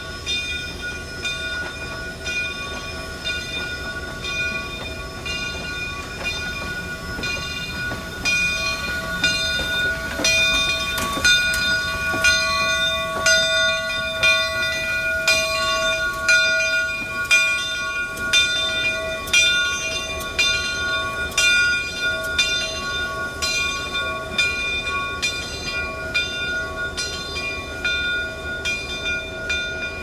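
Southern Railway 2-8-0 steam locomotive No. 401 moving slowly past with its bell ringing steadily, about one and a half strokes a second. The strokes grow loudest in the middle as it goes by close.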